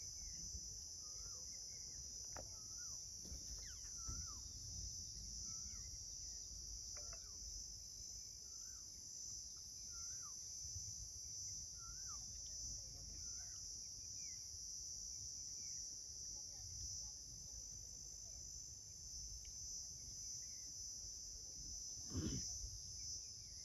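Steady high-pitched insect chorus over low wind rumble. A bird repeats a short chirp about once a second during the first half. A brief louder noise comes near the end.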